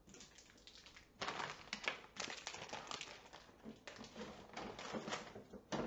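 Plastic candy packaging crinkling and crackling in irregular bursts as hands rummage for an individually wrapped milk candy, starting about a second in.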